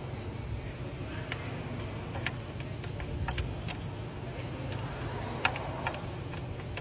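Toyota Land Cruiser engine idling steadily with irregular sharp ticks and clicks over the hum, the loudest about five and a half seconds in: the intake noise problem on this engine.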